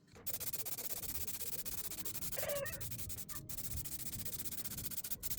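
Aerosol spray can of clear-coat lacquer spraying in a steady hiss, cut off briefly a few times as the nozzle is let go. A short pitched sound stands out about halfway through.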